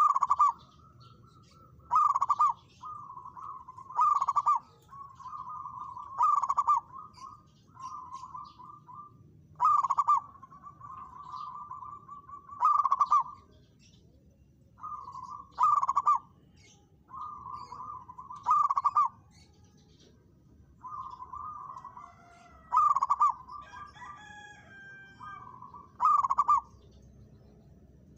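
Zebra dove cooing: rolling, trilled coos repeated in phrases, with a louder accented note every two to three seconds.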